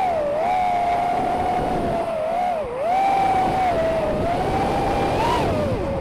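Eachine Wizard X220S racing quadcopter's brushless motors and propellers whining in flight. The pitch dips and climbs again several times as the throttle changes, with the deepest dip about two and a half seconds in and a sharp climb near the end.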